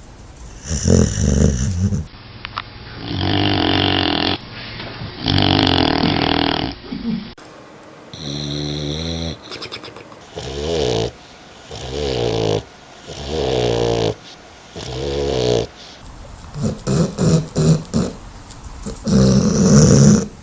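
Dogs snoring: a run of rattling snores about a second long, one every second or two. The sound quality changes several times, as if several recordings were joined.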